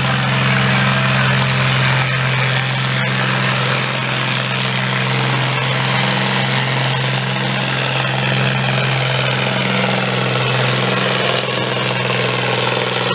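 Red International Harvester farm tractor's engine running hard under full load as it drags a weight-transfer sled, a steady, deep drone held at full power.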